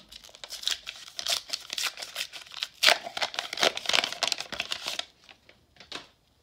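Foil wrapper of a 1991 Upper Deck baseball card pack being torn open by hand: dense crinkling and tearing, loudest about three seconds in. After about five seconds it dies down to a few faint crackles as the cards come free.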